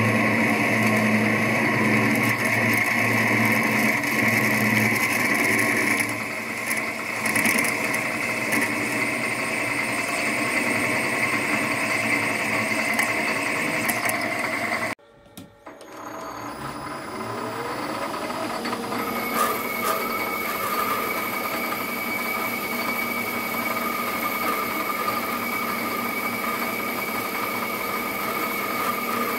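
Small metal lathe running while a twist drill bores into a spinning brass bar. About halfway the sound cuts off abruptly, then the lathe spins back up with a rising whine and runs steadily with a toolpost tool at the brass.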